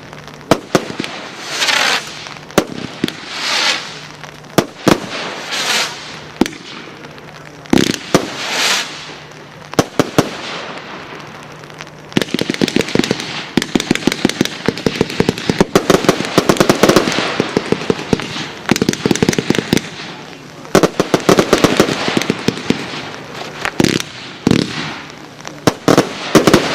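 Wolff Ammo Crate firework going off: separate shots with hissing tails in the first half, then from about halfway a fast, dense string of bangs and crackles, with further bursts near the end.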